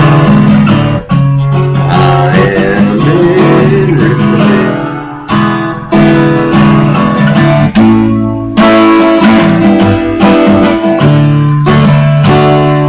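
Music: a song with strummed acoustic guitar, in a stretch between sung lines.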